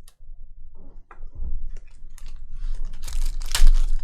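Trading-card box and foil packs being handled and torn open: a run of clicks, crinkles and dull knocks that grows busier and louder after the first second.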